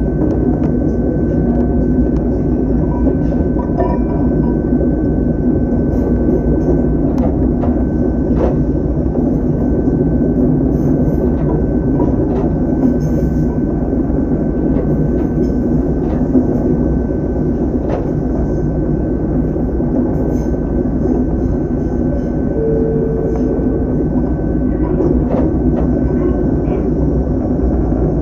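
Ohmi Railway electric train running along the track, heard from the cab: a steady rumble with scattered sharp wheel clicks over rail joints and a thin steady high whine. A short low note sounds about two-thirds of the way through.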